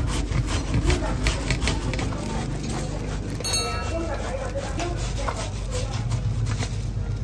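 Fresh taro being grated on a stainless-steel flat grater: rasping scrapes, about three strokes a second, fainter in the second half. A short bell-like chime sounds about three and a half seconds in.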